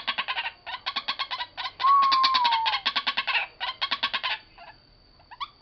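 White-breasted waterhen calling: rapid runs of harsh, stuttering notes in short bursts that break off about four and a half seconds in. A single clear falling whistle sounds about two seconds in, and a faint steady high whine runs underneath.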